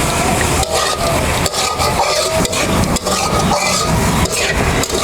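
A spatula stirring and scraping frying greens and small fish around a pan, several scrapes and knocks over a steady sizzle as the greens cook down in oil.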